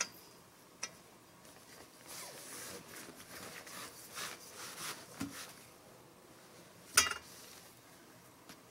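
Metal carport frame pole being slid through the canvas sleeve: fabric rustling and scraping for a few seconds, with a couple of light clicks near the start. One sharp metallic clank about seven seconds in is the loudest sound.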